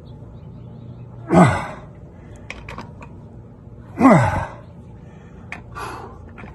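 A man giving two short strained grunts that fall in pitch, about a second and a half and four seconds in, as he heaves on a breaker bar to loosen lug nuts. A few short sharp clicks come between and after them.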